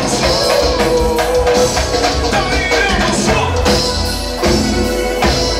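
A song with a steady drum beat, guitar and singing.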